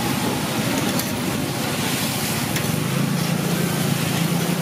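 Rice noodles cooking in a wide flat pan of hot liquid, stirred and lifted with a metal ladle, over a steady rushing noise; a low hum comes in about three seconds in.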